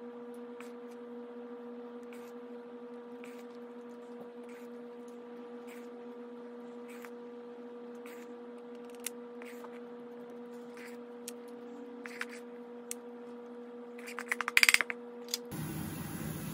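Light, spaced clicks and taps of a plastic trigger portion scoop dropping batter into small plastic moulds, over a steady electrical hum. Near the end comes a quick cluster of louder clicks, then an abrupt change to the hiss of a steamer with its water at the boil.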